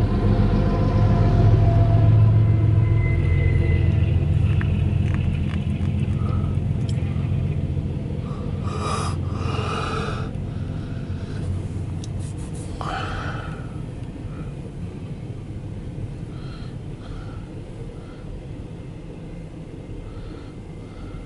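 Diesel locomotive in the middle of a CSX double-stack intermodal train passing close by. Its engine's low rumble fades as it moves away, leaving the steadier rumble of the container cars rolling past, with a few short noisy bursts near the middle. Heard from inside a vehicle's cabin.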